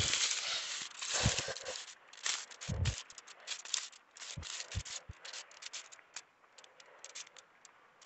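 Leaves and stems of sweet potato vines rustling and crackling close to the microphone as they are pushed aside, with irregular sharp clicks and a few soft low thumps; the crackling thins out to scattered faint clicks near the end.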